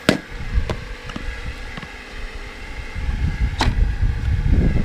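Two sharp knocks from baseball batting practice with a pitching machine, one just at the start and a louder one about three and a half seconds later, with a fainter tap between them. Wind rumbles on the microphone throughout.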